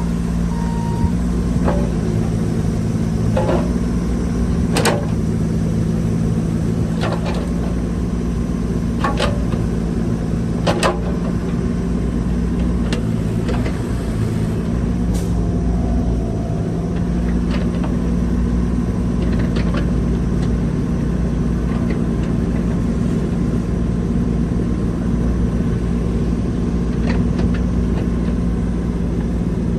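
Bobcat E32 mini excavator's diesel engine running steadily, with short sharp knocks every few seconds from the machine.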